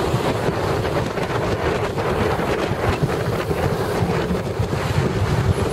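Wind buffeting the microphone over steady road noise from a moving car: a continuous rushing with an uneven low rumble.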